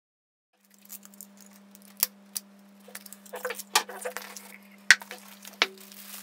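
Cylindrical cardboard camera box being opened by hand: about five sharp clicks and taps as the tube's sleeve is pulled off and the parts are set down on the table, with small rustles between them. A steady low electrical hum underlies it from about half a second in.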